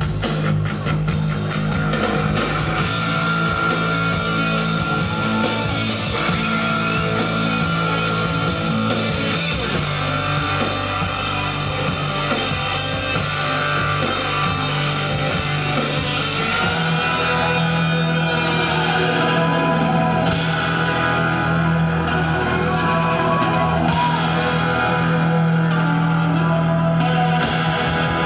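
Live rock band playing loud, with distorted electric guitar, bass and drum kit. In the last third the cymbals drop out in stretches, leaving guitar and bass.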